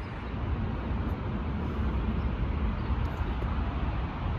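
City street traffic: a steady low engine rumble with road noise.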